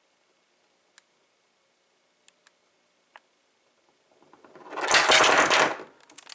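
Metal padlock rattling and clattering on a hard surface: a few faint clicks, then a rattle that builds from about four seconds in, is loudest for about a second and dies away.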